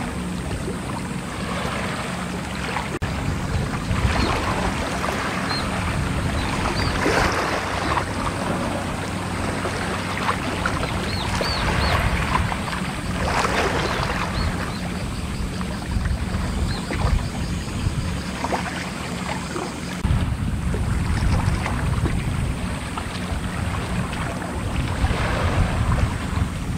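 Wind buffeting the microphone outdoors: a steady low rumble with gusts that swell and fade, and a few brief high chirps now and then.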